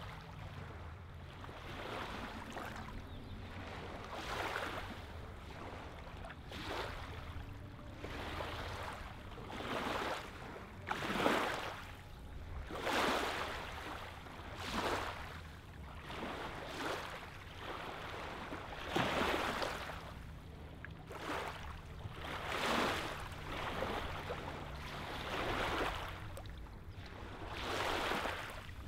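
Small lake waves lapping onto a gravelly sand shoreline, a soft wash every second or two, some swells louder than others, over a low steady rumble.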